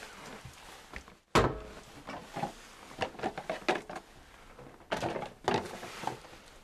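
A sudden loud thunk a little over a second in, then a run of knocks and rattles, with another cluster about five seconds in: objects being handled at a clothes closet.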